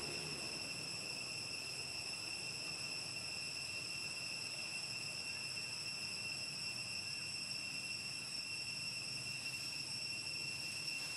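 Insects droning in a steady, high-pitched, unbroken tone that does not change.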